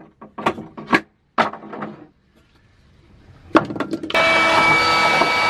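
Several sharp knocks on wood, as wooden supports are worked into a battery compartment, then a few clicks and a small electric motor starting about four seconds in and running steadily with a hum.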